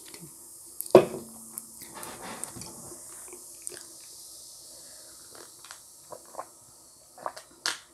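A sharp knock about a second in, then sips and swallows of apple cider from a ceramic mug, with small mouth clicks near the end.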